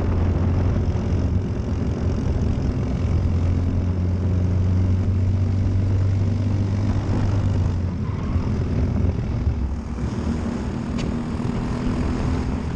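Briggs & Stratton LO206 single-cylinder four-stroke kart engine running hard on track. Its strong steady note weakens and changes about eight seconds in.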